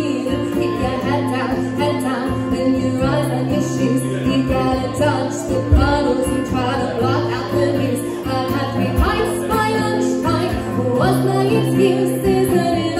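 A song played live on acoustic guitar and ukulele, with a woman singing the melody.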